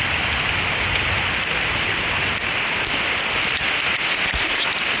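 Steady rain falling on rainforest foliage, a dense even hiss with scattered drop ticks.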